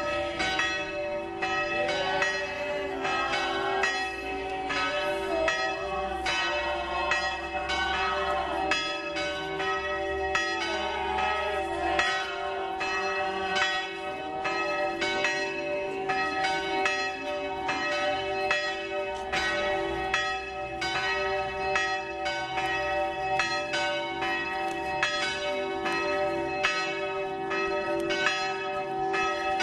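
Church bells ringing continuously, struck about twice a second, their overlapping tones ringing on steadily.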